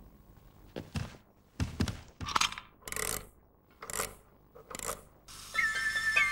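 Cartoon clockwork nightingale being handled and wound: a run of separate clicks, knocks and scrapes, then near the end a high, flute-like tune stepping down in pitch begins as the mechanical bird starts to sing.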